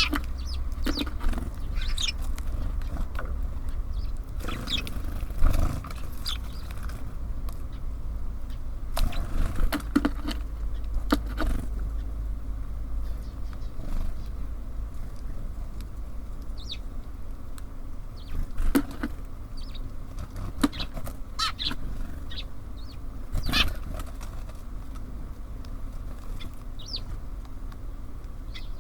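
Birds at a feeder: scattered short wing flutters and brief high calls over a steady low rumble.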